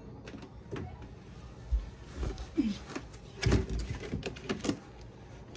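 Stacked containers being wrestled apart by hand: irregular knocks and scraping, the loudest clatter about three and a half seconds in, with a brief squeak in between.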